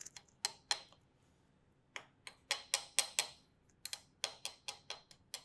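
Knife trimming pie dough around the rim of a pie dish: a run of sharp, light clicks as the blade strikes the dish edge, with a short pause about a second in.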